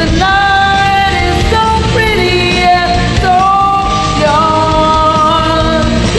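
A woman singing karaoke in held notes over a rock backing track.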